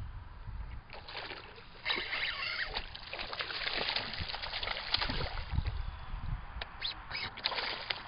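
A hooked bass thrashing at the water's surface close to the bank, throwing up splashes in repeated bursts.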